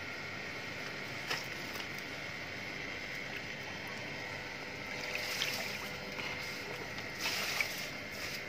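Pool water lapping and splashing lightly as pig-tailed macaques shift about in the water, with a few small splashes about a second in, around five seconds in and again near the end, over a steady hiss.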